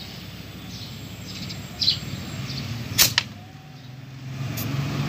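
Sharp click and short puff of air, twice about three seconds in, as an air chuck is pressed on and pulled off the motorcycle tyre's valve to check and top up the pressure after a plug repair. A steady low hum runs underneath.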